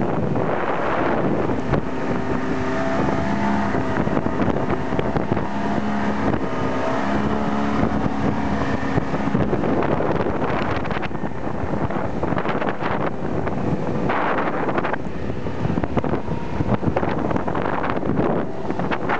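Inflatable boat's outboard motor running at speed, with wind buffeting the microphone and water spraying off the hull.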